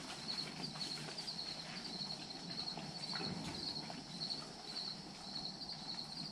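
Insects chirping in a steady, high-pitched pulsing trill, with scattered soft taps and rustles underneath.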